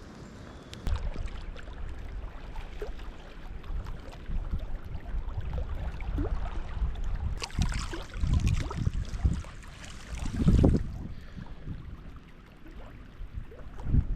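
Wind buffeting the microphone in uneven low rumbling gusts, with rustling and handling noise. A hissier stretch comes about halfway through, and the strongest buffet follows shortly after.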